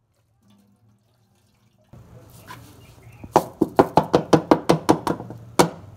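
A hand rapping an upturned perforated metal colander about a dozen times in quick succession, roughly five knocks a second, with a slight metallic ring. The rapping knocks the washed millet out into a cloth. It starts about three seconds in, after near silence, and one last knock comes near the end.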